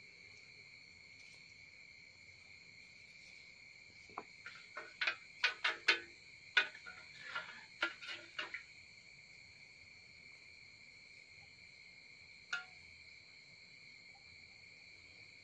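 Crickets chirring steadily and high-pitched. Over them comes a quick run of sharp clicks and knocks about four to eight and a half seconds in, and one more about twelve seconds in: a softened sheep-horn piece and a tool being handled in and against an aluminium pot of hot water.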